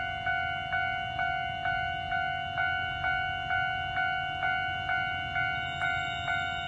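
Railway level-crossing warning bell ringing steadily, about two strikes a second, each strike a bright ringing tone. It signals that the barriers are down for an approaching train.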